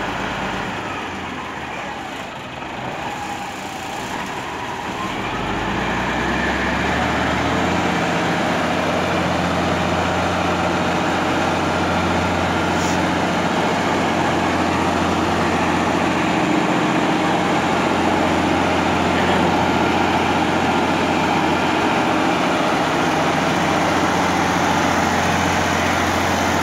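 Autocar truck's diesel engine running, picking up speed and getting louder a few seconds in, then holding a steady higher idle.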